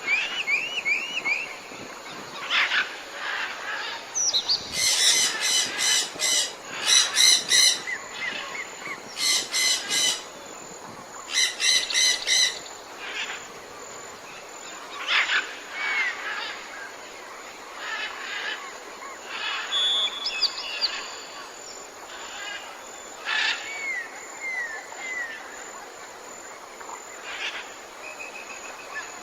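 Birds calling: a few quick rising chirps at the start, then loud rapid series of repeated call notes between about five and thirteen seconds in, then scattered chirps and short whistles.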